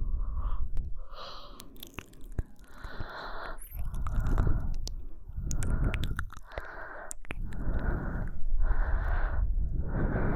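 A woman breathing slowly in and out very close to the microphone, about one breath a second, with a few faint mouth clicks.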